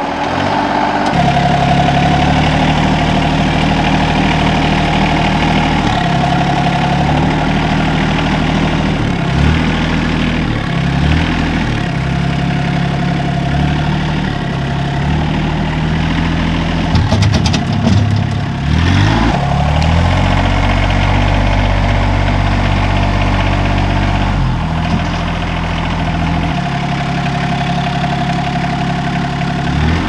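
Compact tractor engine running under load while its front loader moves and dumps sawdust. The engine speed drops and rises a few times, with a short clatter a little past the middle.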